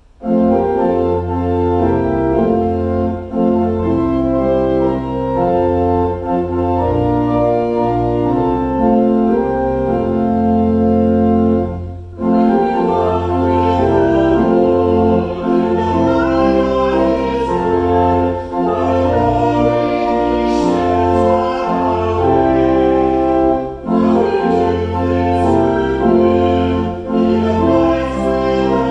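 Church organ playing a hymn in sustained chords, with a woman and two men singing along. The music pauses briefly twice, between phrases.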